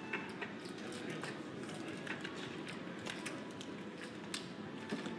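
Roulette chips clicking and clacking in short, irregular knocks as a dealer gathers and stacks them on the table, over a steady background hum of the room.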